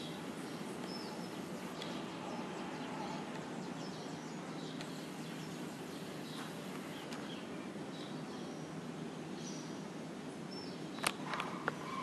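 Steady outdoor background noise with scattered short bird chirps. A few sharp clicks about eleven seconds in.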